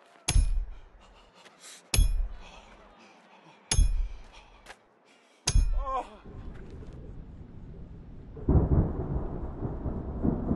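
A hammer drives an iron nail into a wooden beam with four heavy blows, a little under two seconds apart, each a deep thud with a metallic ring. After the last blow a low thunder rumble sets in and grows louder about eight and a half seconds in.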